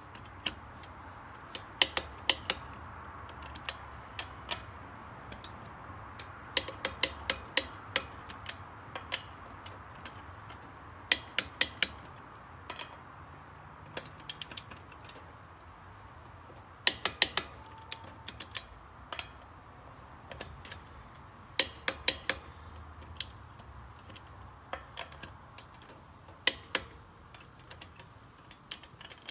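Hand socket ratchet clicking in repeated short bursts of a few sharp clicks as wheel lug nuts are run down and tightened.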